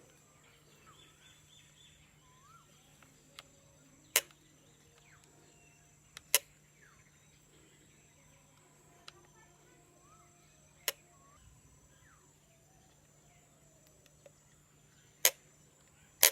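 Sharp, isolated clicks, five loud and a few faint, spaced seconds apart, as a small nail-cutter tool prods the stuck mirror inside a Nikon D3400 DSLR body. This mirror is what the camera's "press shutter release button again" error is about. Faint bird chirps and a steady low hum sit under the clicks.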